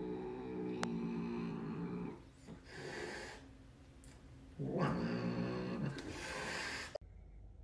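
A domestic tabby cat growling low, breaking into a short hiss about three seconds in. It growls again more loudly about a second later and ends on a longer hiss.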